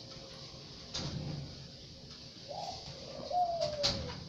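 A bird calling: two low calls, a short one about two and a half seconds in and a longer one a second later that slides down in pitch. A few faint knocks come with them.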